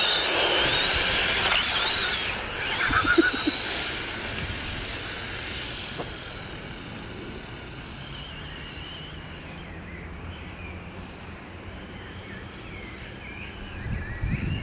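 Two electric RC cars, a brushless HSP Kidking Pro and a brushed WLToys A959 Vortex, racing off from a standing start: high motor whines that rise and fall in pitch over a rushing hiss, loud at first and fading over the first few seconds as the cars pull away, then a faint whine in the distance.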